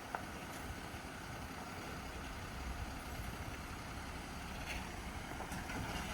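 Jeep engine running at low speed as the vehicle creeps forward: a steady low rumble, with a few faint clicks near the end.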